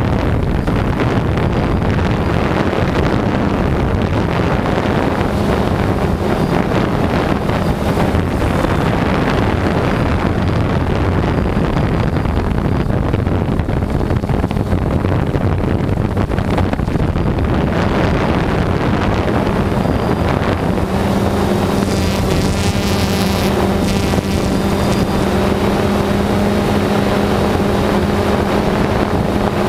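DJI Phantom 2 quadcopter's motors and propellers running with a steady buzzing hum, heard from the camera on board, with wind buffeting the microphone. About twenty seconds in the hum settles into a clearer, steadier pitch.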